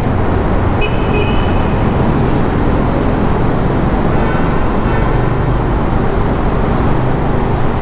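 Bajaj Dominar 400 single-cylinder motorcycle riding at speed inside a road tunnel: a steady, loud rush of engine and road noise mixed with surrounding traffic. A brief high tone sounds about a second in, and fainter ones around four to five seconds.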